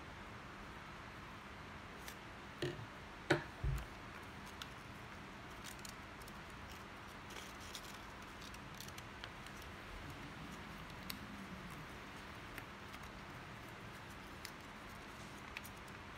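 Craft scissors snipping paper: a few sharp clicks and a low knock between about two and four seconds in, then faint scattered paper crinkles as the paper is folded by hand.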